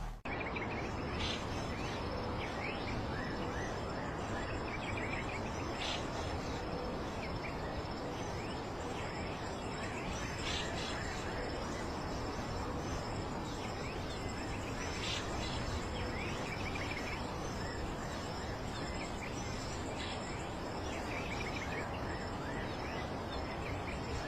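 Outdoor nature ambience: a steady hiss of background noise with faint bird chirps and insect calls, and a brief higher rasp that recurs about every four to five seconds.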